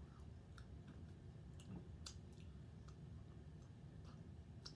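Faint, scattered wet mouth clicks and lip smacks from someone chewing fried chicken, irregular and a second or so apart, with fingers being licked near the end.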